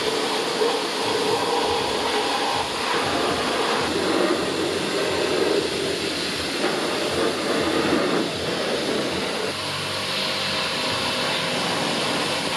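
High-pressure washer jet spraying water onto a car's underbody and chassis: a steady hiss of spray.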